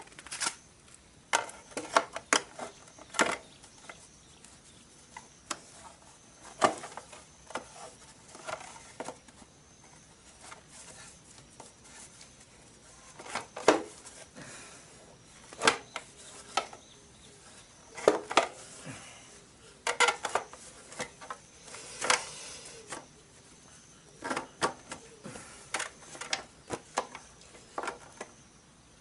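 Irregular metallic clinks and knocks from a Honda CB750's roller drive chain and rear sprocket being handled and wiped down with a rag.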